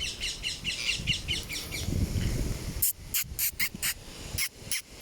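Parakeets calling: a quick run of high chirps for about two seconds, then a string of short, harsh screeches about three a second.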